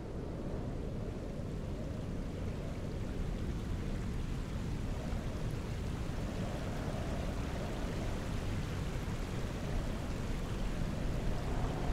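Wind blowing across the microphone: a steady low rushing noise that slowly grows louder.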